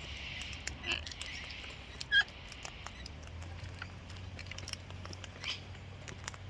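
Close, quick clicking and scratching of a parrot's beak and claws as it nibbles and clambers, with one short loud chirp about two seconds in.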